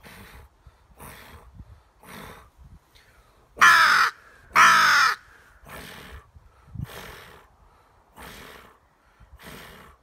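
A person imitating crow caws: soft, breathy grunts from the chest, roughly one a second, with two loud caws a little under four and five seconds in.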